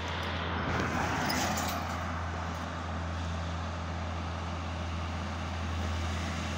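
Heavily loaded diesel cargo truck driving past with its engine under load: a steady low engine drone mixed with road noise, swelling a little about a second in.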